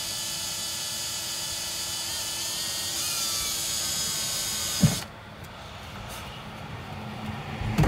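Cordless drill running steadily as its bit cuts down through the sheet-metal floor pan. It stops suddenly with a knock about five seconds in, followed by another knock near the end.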